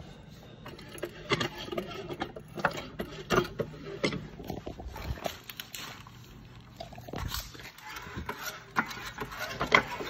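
Irregular metal knocks and clanks of shop lifting equipment, a jack and engine hoist, being handled and moved under a car.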